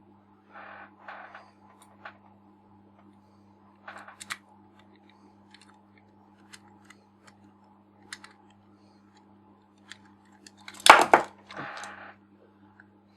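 Small clicks, taps and brief clatters of lens parts and tools being handled while a Nikon 50mm f/1.4 lens is put back together. The loudest clatter comes about eleven seconds in. A low steady hum runs underneath.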